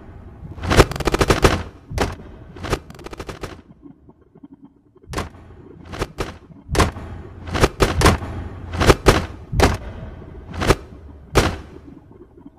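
Loud, irregular banging and knocking. There are quick rattling clusters in the first three seconds, then single hard knocks spaced unevenly from about five seconds in.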